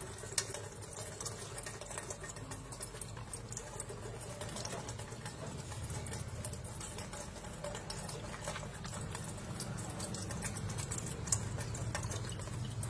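Coconut water trickling from a pierced fresh green coconut, through a stainless steel steamer basket into a metal pot, with a steady splashing patter.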